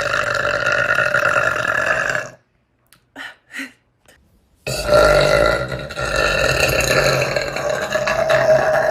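A woman's long, drawn-out burps at a steady pitch: one held until about two seconds in, then a pause with two brief sounds, and a second long burp starting about halfway through.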